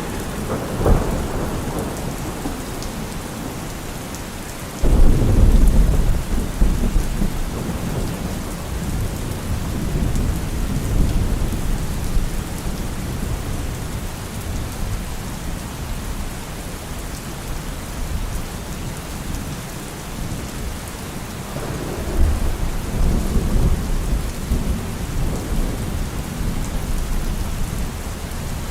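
Steady heavy rain hissing, with rolls of thunder. A loud rumble breaks in suddenly about five seconds in and dies away over several seconds, and another swells up about three quarters of the way through.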